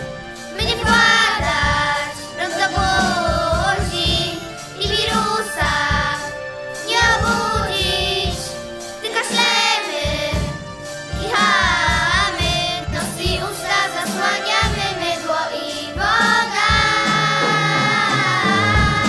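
Children singing a song over an instrumental backing track with a steady beat.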